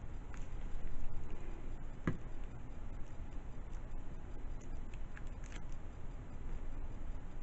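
Quiet desk handling of paper craft pieces: a few small clicks and taps, the sharpest about two seconds in, over a steady low hum.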